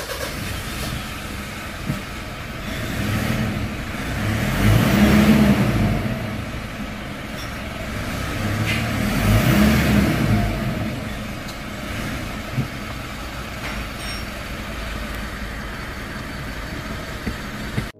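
Mitsubishi Pajero Sport's turbo-diesel engine running at idle just after start-up, with the revs rising twice, about four and nine seconds in, before settling back to idle.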